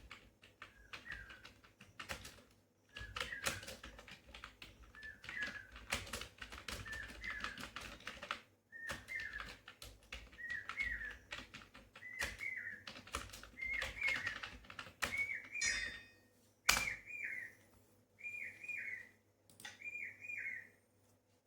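Computer keyboard typing in quick runs of key clicks, with a bird chirping a short, repeated call about once a second over it. The typing stops near the end while the chirps go on.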